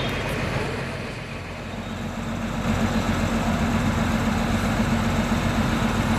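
Intercity bus engine idling with a steady low hum, which grows louder about three seconds in.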